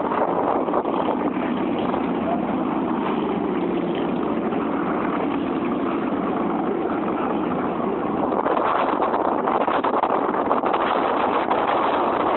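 Harley-Davidson motorcycle on the move: steady rushing wind noise on the microphone over the engine, with buffeting crackle growing in the second half.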